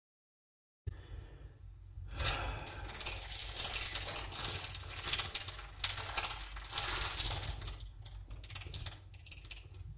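Dead silence for about a second, then irregular crackling clicks and rustles over a low steady hum.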